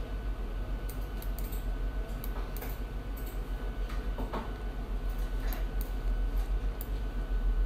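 Scattered sharp computer mouse clicks over a steady low electrical hum and a faint steady high tone.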